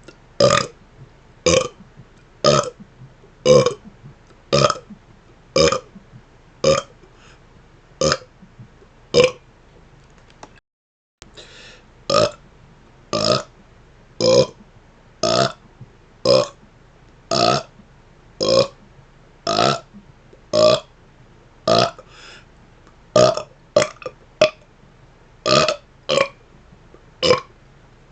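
A man burping rapid-fire: a long run of short burps, about one a second. There is a brief gap of silence about ten seconds in, and near the end the burps come a little faster.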